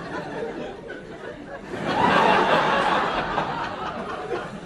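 Comedy club audience of about 200 people bursting into laughter about two seconds in, swelling quickly and then fading back to a murmur of chatter and scattered chuckles.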